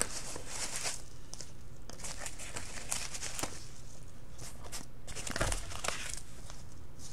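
Packing peanuts rustling and crinkling in a cardboard box as hands dig through them, a run of irregular soft crackles.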